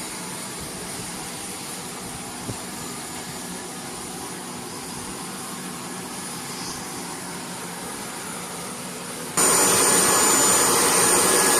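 C-5M Super Galaxy turbofan engines running with a steady noise and a thin high whine. About nine seconds in, the sound abruptly becomes much louder, with the whine stronger.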